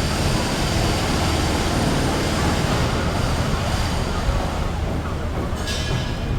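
Hong Kong electric double-decker tram running with a steady low rumble, with a brief high-pitched sound near the end.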